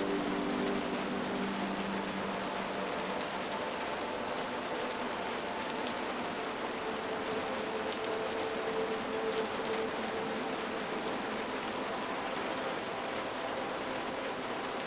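Steady rain falling, an even hiss scattered with many fine drop ticks.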